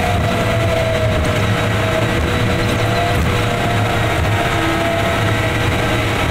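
Steady driving noise in a truck's cab in a highway tunnel: a continuous rumble with a whine that slowly falls in pitch.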